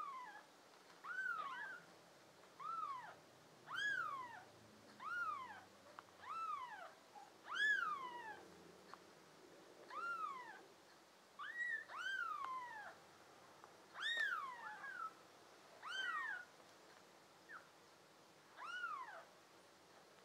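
Newborn kitten mewing over and over: high, thin cries that each rise and then fall in pitch, about one every second or so.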